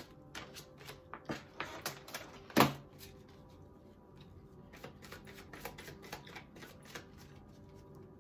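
Tarot cards being shuffled by hand. A quick run of card snaps and taps fills the first three seconds, the loudest a sharp slap about two and a half seconds in, then softer, sparser flicks follow.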